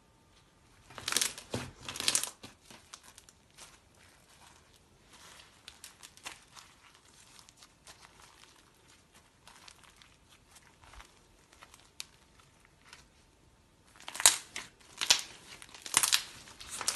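White slime mixed with small coloured beads being stretched, squeezed and kneaded by hand, giving bunches of short crackles and pops. The crackles are loudest just after the start and again near the end, sparser and quieter in between.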